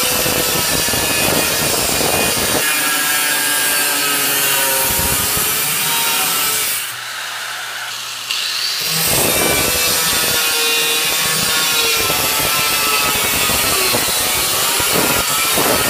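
Angle grinder cutting a steel knife blank: a harsh grinding with the motor's whine running through it. About seven seconds in the wheel comes off the steel for a second or so, the sound drops and thins, then the cut picks up again.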